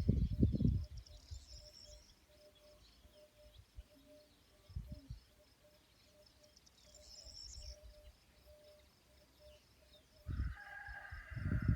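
Outdoor rural ambience: small birds chirping briefly twice and a longer bird call near the end, over a faint steady pulsing chirr. Low heavy thumps come at the very start and again near the end; these are the loudest thing.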